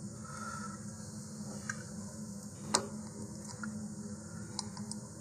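Small clicks and taps of hard plastic model rocket parts being handled by hand, with one sharper click a little past halfway, over a low steady hum.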